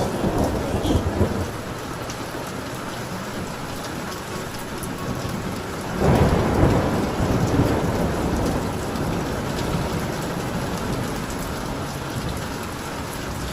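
Heavy rain pouring steadily in a thunderstorm. About six seconds in, a rumble of thunder breaks in loudly and slowly dies away under the rain.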